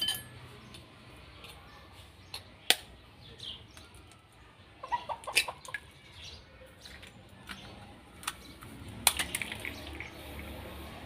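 Sharp taps and clicks of a steel fork cracking an eggshell over a ceramic bowl, clinking the bowl a few times. The taps are scattered, with a quick cluster near the middle.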